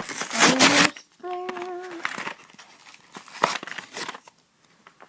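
Plastic wrap and cardboard packaging of a Pokémon card box crinkling and tearing as it is opened, loudest in the first second, then scattered crackles that fade out near the end. A short pitched squeak or hum sounds about a second in.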